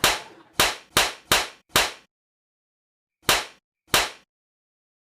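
A series of sharp slaps or knocks: five quick strikes about 0.4 s apart, a pause, then two more.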